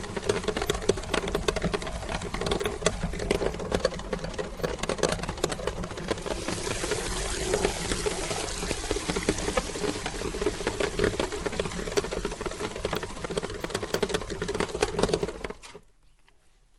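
Electric meat grinder running with a steady motor hum while Orbeez gel beads are crushed through it, giving a dense crackle of small pops and clicks. The motor cuts off suddenly shortly before the end.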